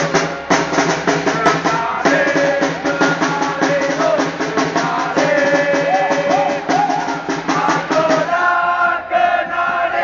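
Supporters' ultras group chanting a song in unison over a rapid, steady drumbeat. The drumming thins out about eight and a half seconds in, leaving mostly voices.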